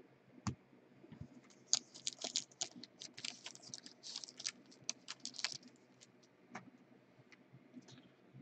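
A trading-card pack wrapper being torn open and crinkled by hand: a dense run of quick, high-pitched crackles for a few seconds in the middle, with a few scattered ticks as the cards are handled.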